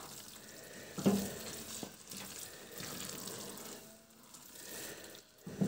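Pan of rice and vegetables sizzling softly on the stove as it is stirred, with a spoon knocking against the pan about a second in.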